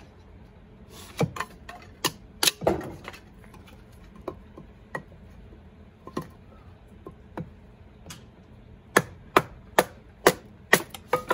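A hatchet splitting kindling on a wooden chopping block. There are four sharp chops in the first three seconds and a few lighter knocks in the middle. Near the end comes a quick run of about six chops in two seconds.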